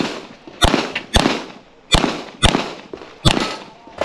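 Pistol shots from a CZ Shadow 2 fired in quick succession, about six sharp cracks roughly half a second apart, each with a short echo.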